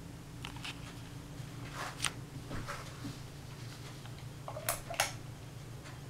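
Ceiling fan motor humming steadily while it runs, with a few light clicks and a louder double click near the end, as the light kit's pull-chain switch is pulled to turn the lights on.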